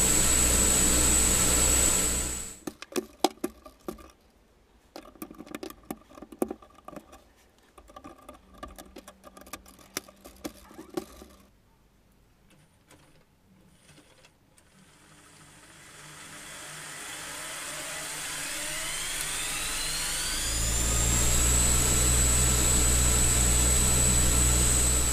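Lego electric motors spinning propellers with a steady high whine, cutting out suddenly after about two seconds. Irregular clicks and knocks follow for several seconds, then the motors spin up again with a rising whine and settle back into the same steady run near the end.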